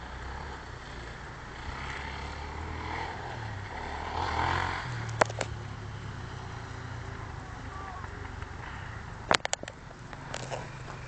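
Off-road motorcycle engine running as a steady low drone, swelling slightly about halfway through. A few sharp clicks come about halfway and again near the end.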